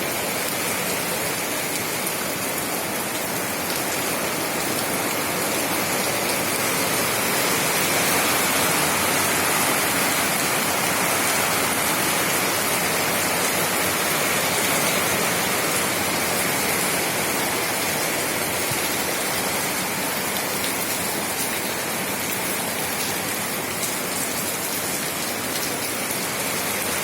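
Rain falling steadily as an even hiss, swelling a little about a third of the way in.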